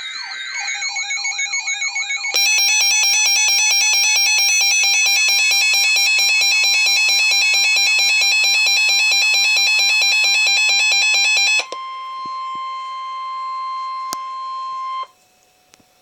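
Reecom NOAA weather alert radio sounding its alarm for a severe thunderstorm warning: first a warbling siren tone, then from about two seconds in a loud, rapid electronic beeping. The beeping stops about twelve seconds in, leaving the broadcast's steady single-pitch warning alert tone, which cuts off about three seconds later.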